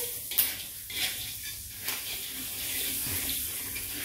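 Corn kernels frying in a hot metal wok, a steady sizzling hiss, while a spatula stirs and scrapes through them, with a few sharp clicks.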